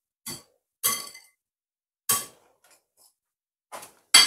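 Wire balloon whisk clinking against the side of a glass mixing bowl while whisking wet batter: five short, separate knocks at uneven spacing, the loudest near the end.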